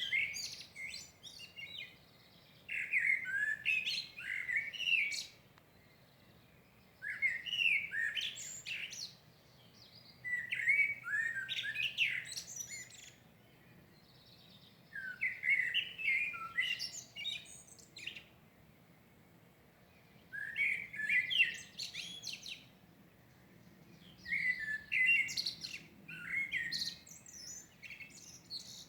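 A songbird singing its dawn song in separate warbling phrases of two to three seconds each, with short pauses between them, about seven phrases in all.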